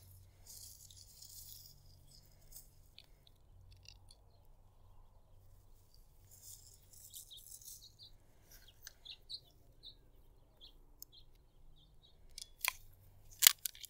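Faint rustling and small ticks as an MC4 solar connector contact and PV wire are handled and set in a solar crimping tool, then two sharp clicks about a second apart near the end as the crimper closes on the contact.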